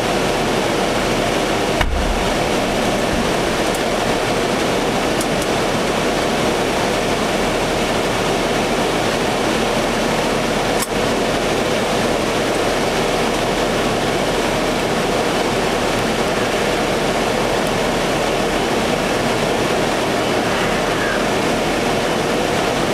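A single dull, low thump about two seconds in from an improvised explosive device detonating in the distance, over a steady rushing noise.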